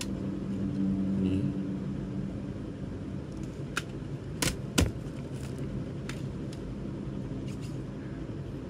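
Plastic CD jewel case being handled and opened: a few sharp clicks, the loudest two in quick succession about halfway, over a steady low rumble.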